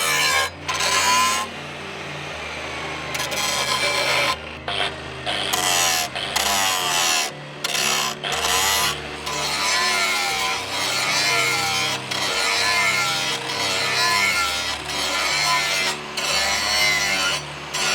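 Hand filing or rubbing on a knife blade: repeated back-and-forth rasping strokes, roughly one a second.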